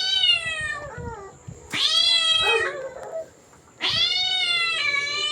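Recorded cat meows played as a sound effect: three long, drawn-out meows, the last beginning a little before the end.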